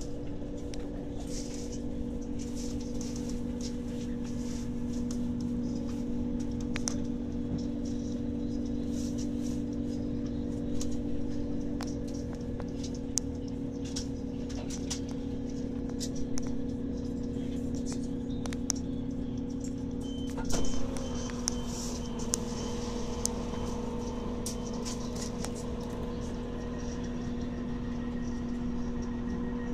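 Steady running drone of a train heard from inside the carriage, with scattered short clicks and knocks; about two-thirds of the way through the drone's pitch drops slightly and settles.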